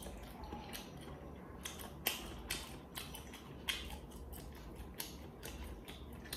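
Close-miked eating sounds of a person chewing sliced shoulder ham: irregular sharp wet mouth clicks and smacks, about a dozen, with quiet chewing between them.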